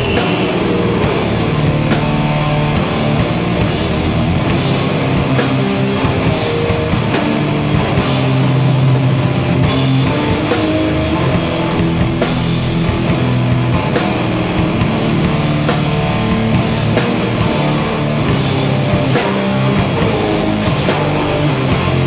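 Rock band playing live: electric guitars and bass with a drum kit, steady and loud, the drums striking in a regular beat.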